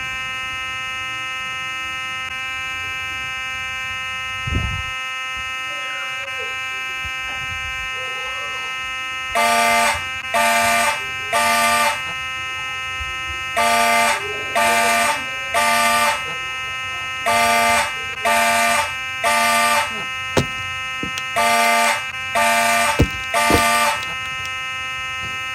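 Fire alarm horns sounding in the code 3 (temporal-three) pattern from about nine seconds in: three short blasts, then a pause, repeating about every four seconds. A steady electronic alarm tone runs underneath throughout, with a single thump about four seconds in.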